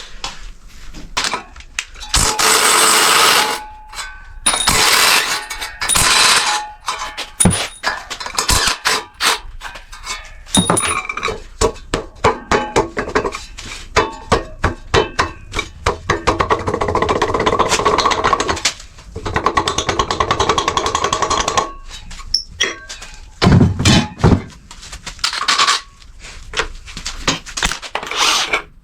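Hand tools working bolts loose on a rusted engine: runs of rapid ratchet clicking, broken up by metal clinks and knocks, with a heavier knock near the end.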